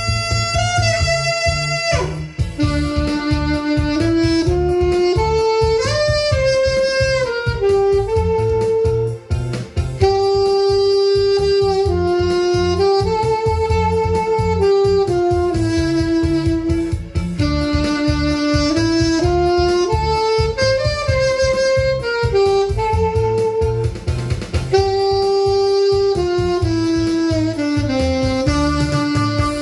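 Saxophone playing a slow, lyrical melody of long held notes that step up and down, over a backing track with a steady bass-and-drum beat.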